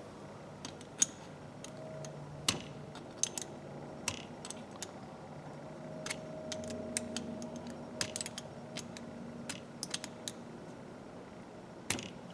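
Irregular small metal clicks and taps from a 1/4-inch ratchet and hand tools being worked during disassembly, while its retaining pin is pushed down.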